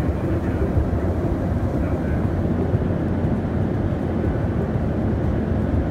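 Steady low rumble of airliner cabin noise, heard from inside the passenger cabin.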